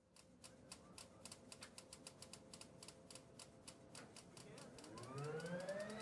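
Faint rapid, even ticking of a jet engine's igniters during a start, then from about four and a half seconds in a rising whine as the Me 262's turbojet spools up and grows louder.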